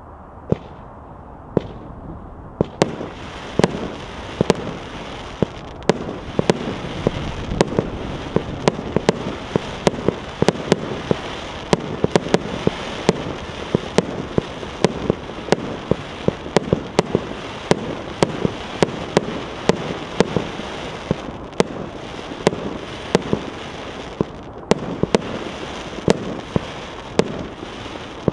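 A 49-shot, 1.25-inch consumer fireworks battery (cake) firing its shots one after another, close to two a second. Each shot is a sharp report, and the sparkle and crackle of the bursting stars fill the gaps between shots. The shots begin after a couple of seconds of a few smaller pops.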